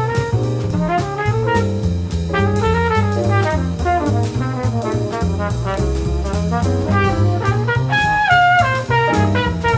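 Jazz quintet playing: flugelhorn and alto saxophone play a quick melodic line together over bass and drums.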